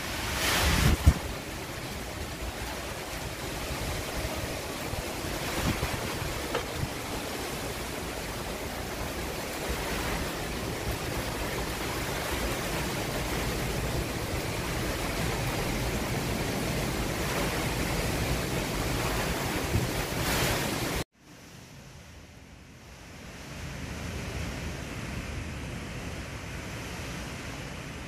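Strong wind and heavy rain as a steady rush, with gusts buffeting the microphone and a sharp bump about a second in. It cuts off abruptly about 21 s in and comes back quieter.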